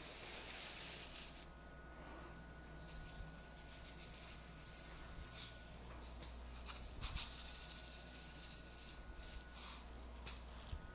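Faint rustling and crinkling of plastic film as a cookie-dough log is rolled in it, with tiny sugar sprinkles (nonpareils) rattling and scattering over the film and counter. A few short, louder crinkles come in the second half.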